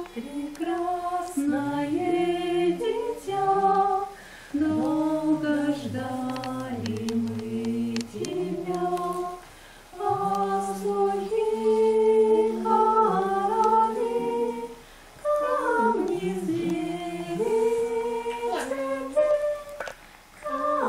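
Unaccompanied singing: a slow melody sung without instruments, in phrases of a few seconds each with short breaths between them.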